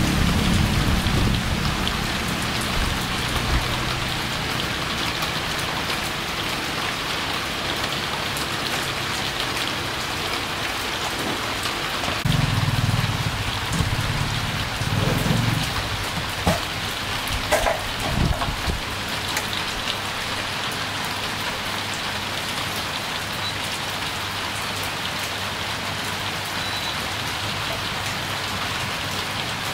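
Steady, even hiss like rain on a surface, with a few brief low rumbles and knocks in the middle.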